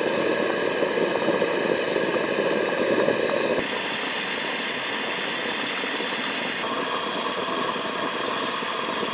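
Portable gas canister camp stove burner running at full flame under a pot: a steady hiss. Its tone shifts slightly twice.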